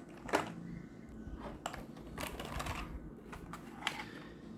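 Irregular clicks and light knocks from a Machenike K600 mechanical keyboard being handled, its keys and case tapping, the sharpest click about a third of a second in.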